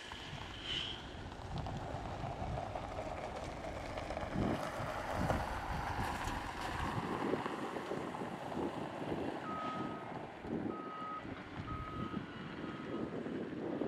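Cat 972M XE wheel loader working, its engine running under load while a bucketful of gravel pours into a dump truck's steel body. From about ten seconds in, the loader's reversing alarm beeps about once a second as it backs away.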